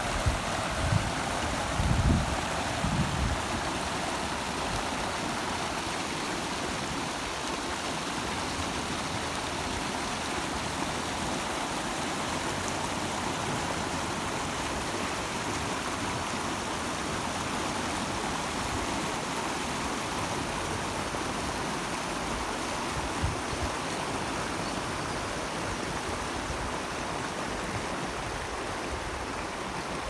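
River water rushing steadily over a low concrete weir, white water pouring down the spillway. A few low thumps come in the first few seconds.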